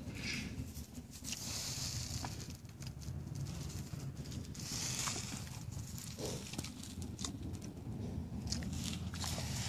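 A pig close by, breathing and grunting low, with two soft breathy hisses and scattered small clicks and scuffs in the dirt.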